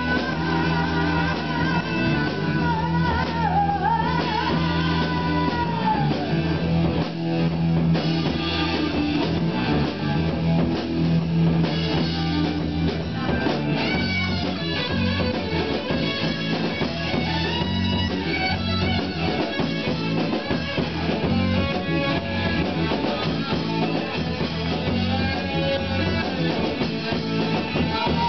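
A live rhythm-and-blues band playing: electric guitar, bass guitar, drum kit and keyboard. A woman sings lead over it in the first few seconds and again near the end, with an instrumental stretch between.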